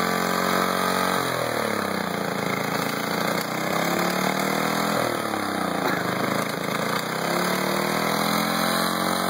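Small engine on a Snapper stump grinder running while being fed transmission fluid, its speed sagging about a second in and again around six seconds, then picking back up each time.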